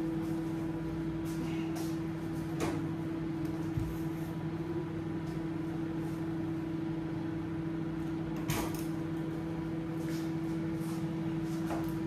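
Kenwood microwave oven running a heating cycle: a steady hum, with a couple of faint clicks about two and a half and eight and a half seconds in.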